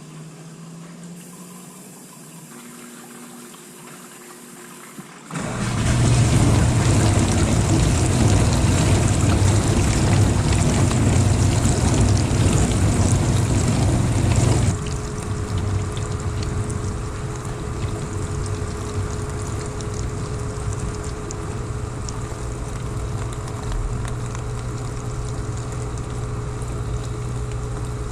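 Dishwasher running with a teaspoon of ordinary dish soap inside. A faint rising hum comes first. About five seconds in, the pump starts and loud spraying water rushes over a low hum. About halfway through it drops to a quieter steady hum with a faint whine.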